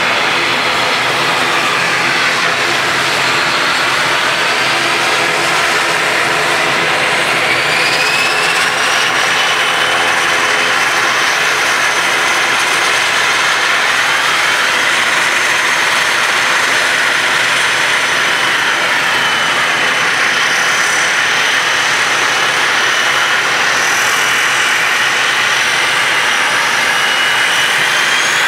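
ATR 72-500 turboprop engines: one Pratt & Whitney PW127 running steadily while the other spools up during start, a high turbine whine rising in pitch about eight seconds in and again near the end, over loud, steady engine and propeller noise.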